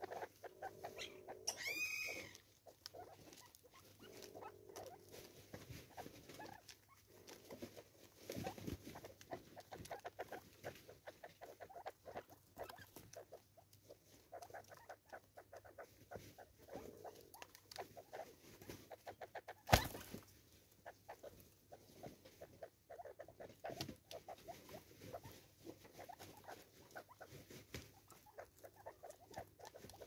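Francolins pecking seed from a plastic bottle feeder on a stump: a faint, steady patter of small taps and scratches, with soft low clucks now and then. One sharp knock stands out about two thirds of the way through.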